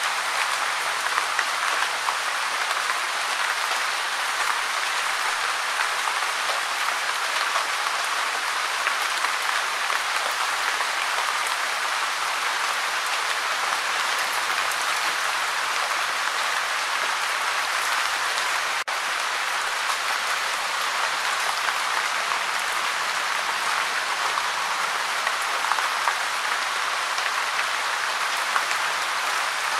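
Gentle rain falling steadily: a dense, even patter of many small drops, with a split-second dropout about two-thirds of the way through.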